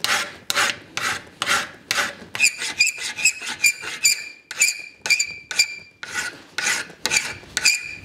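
Hand file rasping back and forth across a small piece of steel angle iron clamped in a vise, about two strokes a second, while a bevel is filed onto the edge. In the middle stretch the strokes come quicker and each one sets off a high metallic ringing note.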